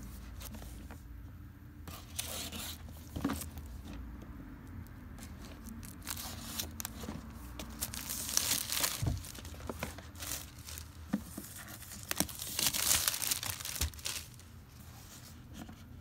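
Plastic shrink-wrap being slit with a box cutter and torn and crinkled off a game box, in irregular rustling bursts that are thickest a little past the middle and again later on.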